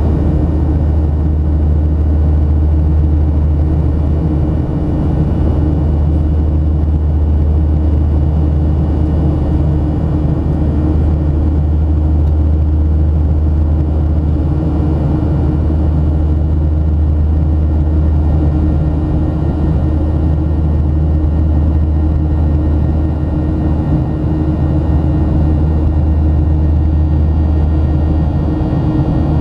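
Jet airliner cabin noise at a window seat beside the wing-mounted turbofan engine in flight: a steady roar with a deep rumble and a few faint steady engine tones above it.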